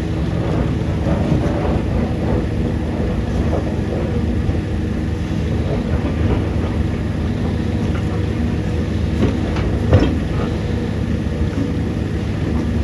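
Heavy diesel machinery of an excavator loading a tipper truck, its engines running steadily with scattered light knocks and one sharper clank about ten seconds in.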